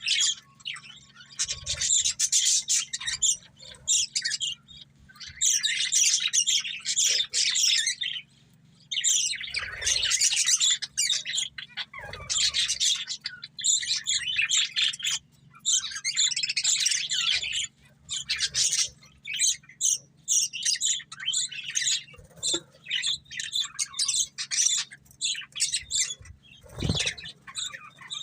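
A pair of budgerigars chattering and warbling in rapid runs of high chirps, each run lasting a second or two with short pauses between, over a faint steady hum.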